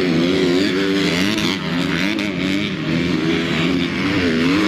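Motocross dirt bike engines revving on a race track, their pitch rising and falling again and again as riders work the throttle.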